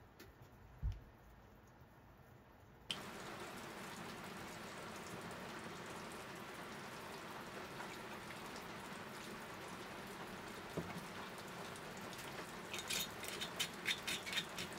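Rain falling steadily on the roof of a small camper, heard from inside; it starts abruptly about three seconds in, after a quiet stretch with one soft thump. Near the end there is a quick run of small, sharp ticks and clinks as the sake bottle and a small glass are handled on the table.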